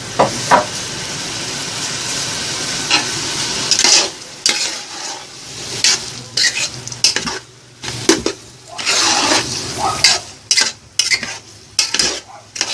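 Ground beef and tomato paste sizzling in a large aluminium pot while a metal spatula stirs it. A steady sizzle for the first few seconds, then repeated scraping strokes and clinks of the spatula against the pot.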